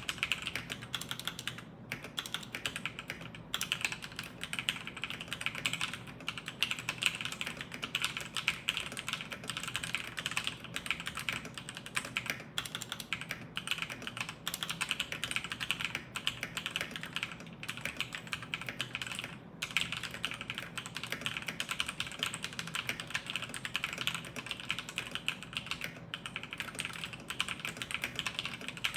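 Fast, continuous typing on an Acer Predator Aethon 301 mechanical keyboard: TTC Silver speed linear switches under OEM-profile keycaps in a steel plate with no foam. The keystrokes run in a dense stream broken by a few brief pauses.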